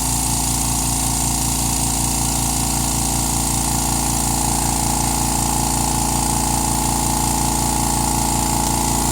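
California Air Tools 2010A 1 hp air compressor running steadily while filling its 2-gallon aluminum tank, heard close to its air intake, where most of its noise comes from. It has a fast, even pulsing under the running sound.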